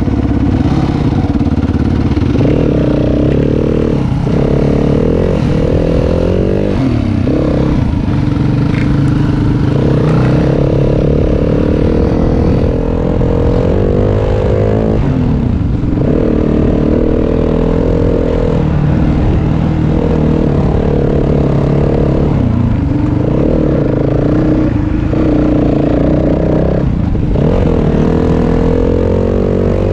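Yamaha WR250F's 250 cc four-stroke single-cylinder engine running under way, heard from the rider's own bike. Its pitch holds, drops off and climbs again over and over as the rider works the throttle through the gears.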